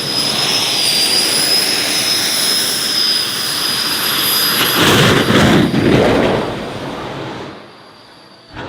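Jet turbine in a Renault Twingo jet car running with a high whine over a loud rush. About five seconds in, a louder whooshing roar lasts a second or so as the car shoots flames. The sound then falls away sharply.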